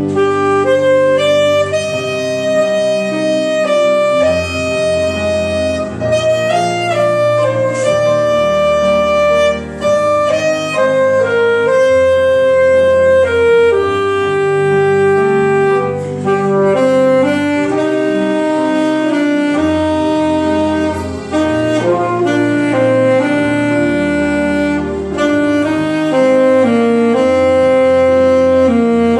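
Saxophone playing a slow melody of long held notes and short runs over a sustained low accompaniment.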